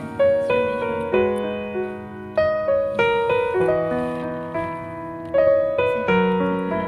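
Background piano music: notes and chords struck one after another, each ringing and then fading.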